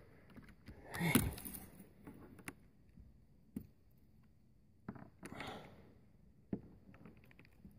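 Quiet, scattered handling noises while a large catfish is held up in a kayak: a few sharp knocks and light scrapes, with a short breathy sound about a second in and a softer one about five seconds in.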